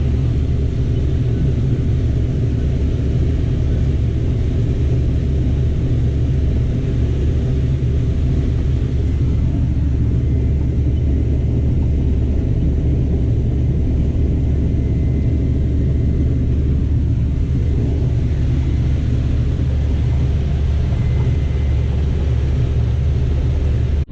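Combine harvester running steadily while harvesting corn: a continuous low engine drone with steady humming tones above it.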